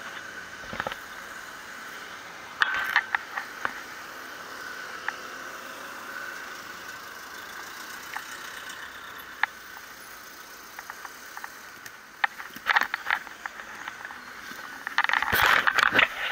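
Irregular mechanical clicks and rattles over a steady background of street traffic, with a loud burst of clattering near the end.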